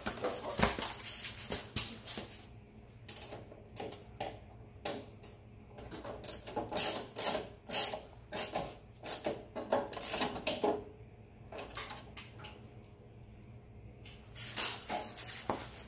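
Ratchet wrench clicking in irregular short runs, with clinks of metal on metal, as the terminal nuts on a DC reversing solenoid are tightened.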